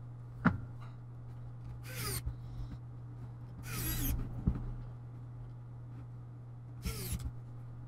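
Small screwdriver driving screws into a laptop heatsink and cooling-fan assembly: a sharp click about half a second in, then three short squeaky scrapes of the screws turning, over a steady low hum.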